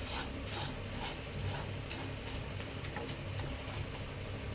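Spatula stirring and scraping vermicelli as it roasts in butter in a pan, in short strokes about three a second over a low steady hum.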